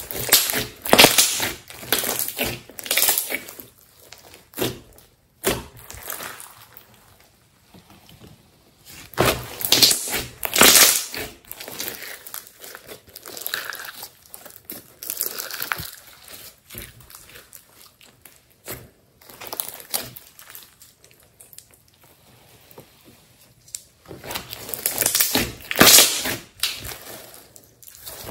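Pink slime squished, kneaded and stretched by hand, making irregular bursts of popping and squishing. The bursts are loudest near the start, about ten seconds in, and near the end.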